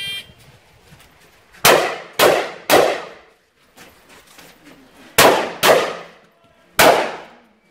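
A shot timer's start beep, then a semi-automatic 12-gauge shotgun (Beretta 1301) firing: three quick shots about half a second apart, a pause, two more quick shots, a single shot a second later, and another at the very end.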